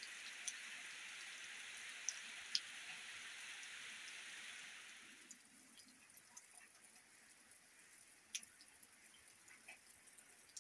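Faint light rain: a soft, even hiss of rain that fades out about five seconds in, leaving scattered drips and ticks.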